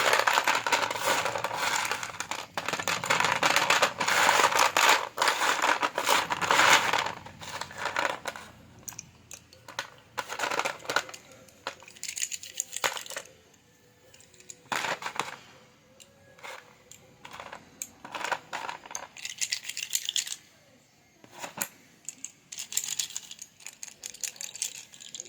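Slate pencils clicking and rattling against one another as they are handled, a dense clatter for about the first seven seconds and then scattered single clicks and short rattles.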